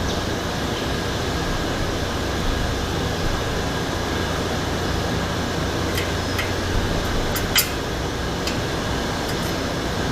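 Steady machine hum, like a running fan, with a few light clicks of tools being handled in the second half, the sharpest about two-thirds of the way in.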